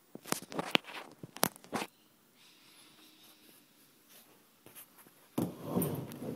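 Close handling noise: a quick run of sharp clicks and knocks in the first two seconds, then a louder rustling scrape near the end.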